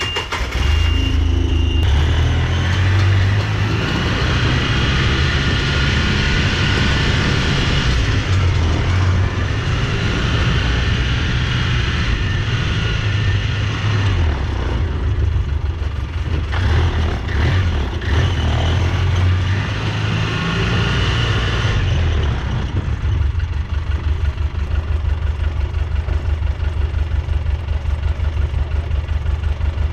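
Polaris Ranger side-by-side engine running while being driven, rising and falling with the throttle. About 22 seconds in it settles into a steady, pulsing idle.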